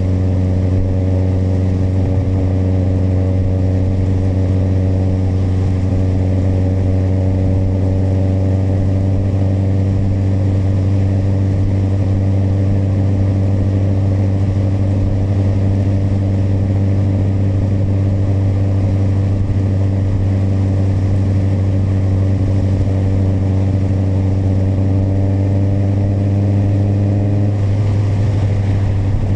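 Kawasaki motorcycle engine running at a steady cruising speed, a constant low drone with wind and road hiss. The engine note shifts slightly near the end.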